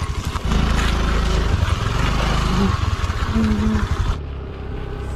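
Motor scooter's small engine running as the scooter is ridden off, a steady rumble that turns duller and quieter about four seconds in.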